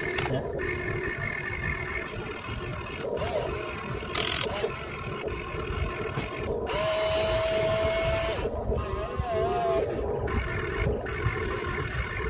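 Electric motors of a Huina radio-controlled excavator whining as it digs soil and swings its boom, with a steady tone for about a second and a half in the middle that then wavers. A brief hiss about four seconds in.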